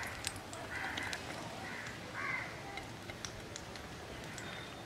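A few short crow caws, faint, in the first half, with light scattered ticks from hands pressing soft dough on a banana leaf.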